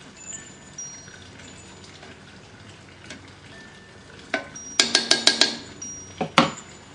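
Metal clanking on a cast iron Dutch oven: a quick run of about five ringing metal strikes a little past halfway, then two more shortly after.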